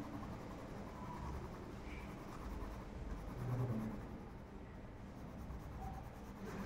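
Coloured pencil scratching faintly and steadily on paper as a drawing is shaded in.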